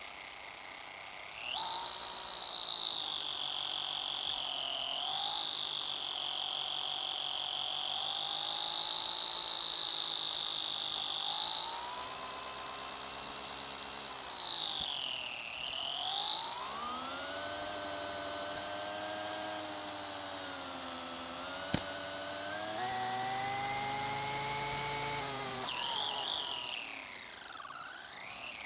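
Electric RC car's motor and gears whining, heard from a camera on the car. The pitch rises and falls with its speed: it climbs sharply about a second and a half in, dips briefly around the middle, runs highest for several seconds after that, and drops away near the end.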